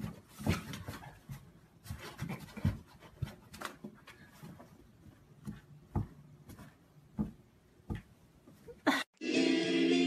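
Irregular soft taps, scrapes and rubbing on a wooden board as a cat paws at a white toy poking up through a hole in it. About nine seconds in, this cuts off and loud music with singing begins.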